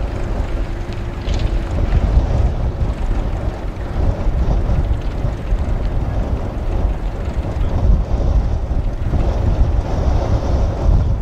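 Wind buffeting the microphone with a gusting low rumble, over a tractor engine running steadily underneath.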